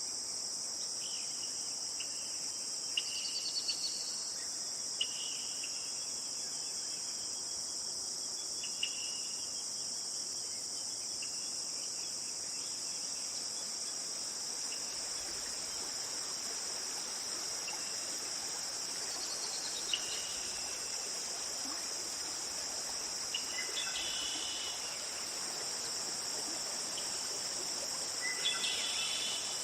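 Steady, high-pitched chorus of insects, with short bird chirps scattered over it now and then, a few clustered near the end.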